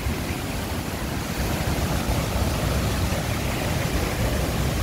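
Steady roar of a large waterfall in monsoon flood: a dense, even rushing noise with a heavy low rumble.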